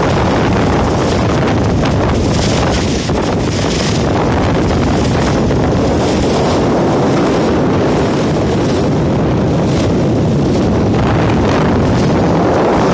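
Strong wind buffeting the microphone, loud and steady, aboard a sailboat heeled over under sail, with rough water rushing past the hull.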